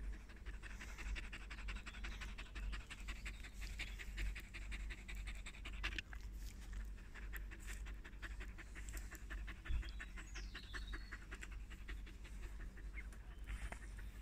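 Kerry Blue Terrier panting rapidly and steadily close to the microphone.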